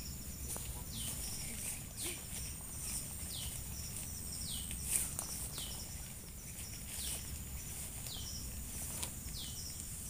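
Tropical forest ambience: a steady high insect drone, with a short high call that falls in pitch, repeated about once a second. A light knock sounds about halfway through.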